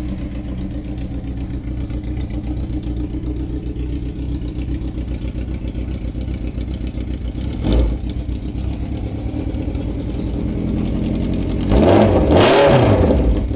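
Honda CBX750's inline-four engine idling loudly, given a short blip of the throttle about halfway through and a longer rev near the end that climbs and falls back to idle.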